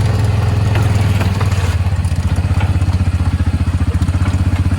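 Small vehicle engine running steadily as it carries riders along, a low drone with a fast even pulse that grows plainer about two seconds in, with some light clatter early.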